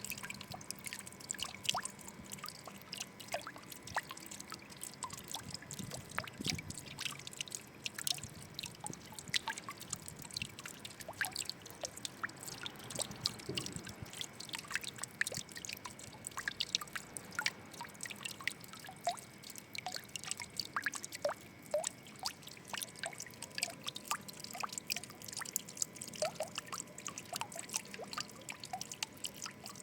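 Water trickling and dripping: many small, irregular drops and splashes over a soft steady flow.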